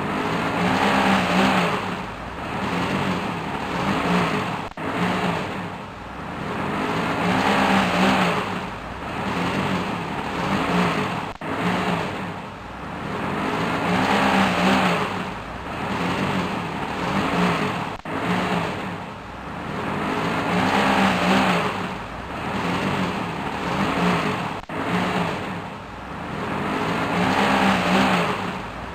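Truck engine revving in repeated surges, rising and falling about every three seconds, as the stuck truck tries to pull out of mud.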